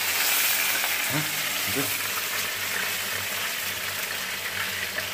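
Food frying in hot oil, a steady sizzle.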